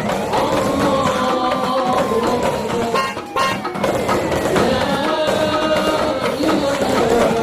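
A siren wailing twice, each wail rising quickly and then sliding slowly down, over background music with drums.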